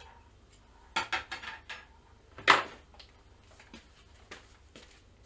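Hard small objects handled and set down, likely a screwdriver and console parts: a quick run of light clicks and clinks about a second in, one louder clack about two and a half seconds in, then a few faint clicks.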